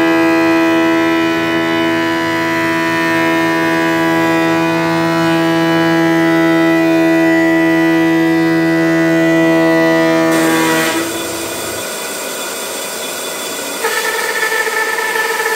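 Holzmann HOB 410 jointer-planer running with a steady whine as boards are fed across its cutterhead. About eleven seconds in, the sound cuts abruptly to a band saw, which settles into a steady, higher tone near the end as it cuts through a wooden slab.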